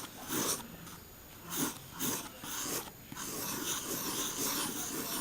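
HB pencil scribbling on sketch paper. There are a few separate scratchy strokes at first, then steady back-and-forth shading from about three seconds in.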